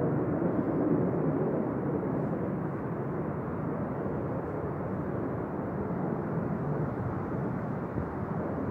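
Fighter jets passing overhead: a steady, low jet rumble, loudest at the start and slowly easing off.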